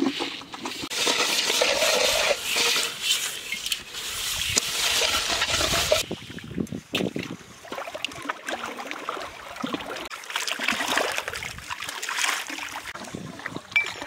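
Water splashing and sloshing as metal cooking pots are scrubbed and rinsed in a shallow stream.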